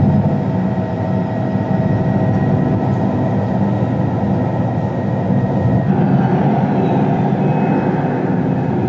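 Steady, loud running of a large engine or machine, a dense low rumble with a thin steady whine that shifts about six seconds in.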